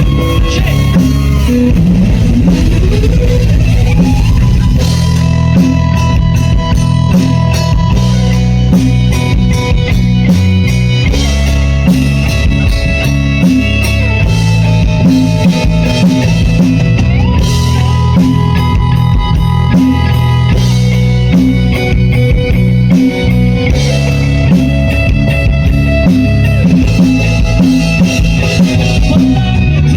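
A rock band playing loudly during a sound check: guitar with held notes over a drum kit, with a guitar note sliding upward in the first few seconds.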